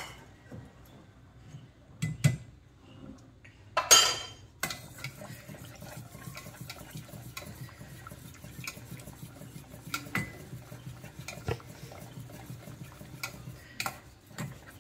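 Milk thickened with cornflour being stirred in a stainless-steel pot: a steel ladle clinks against the pot a couple of times, there is a louder clatter about four seconds in, and then a wire whisk beats steadily with small metallic ticks against the sides.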